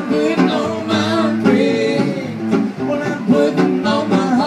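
Live country music: acoustic guitars strummed and picked, with a voice singing the melody.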